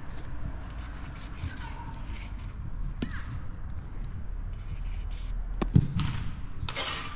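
Felt tip of a squeeze paint marker rubbing in short strokes on a painted metal fence post, with two dull thuds about three and six seconds in.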